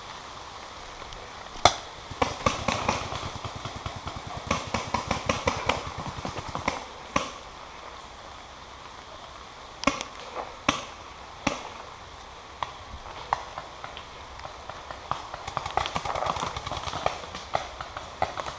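Paintball markers firing: single sharp pops and rapid strings of shots, in several volleys separated by pauses, over a steady hiss of rain.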